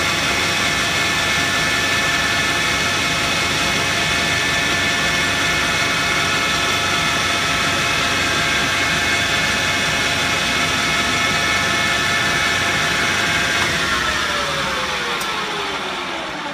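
Metal lathe running with a steady whine while taking a facing cut on a 5-inch aluminium slug. About three-quarters of the way through it is switched off, and the whine falls in pitch as the spindle coasts down.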